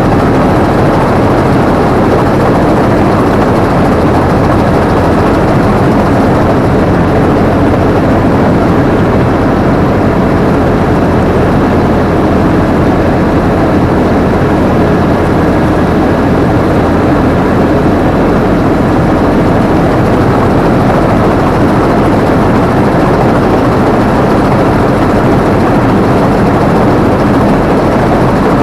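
Combine harvester running steadily at working speed, its engine and machinery making a loud, even din as heard from the operator's position.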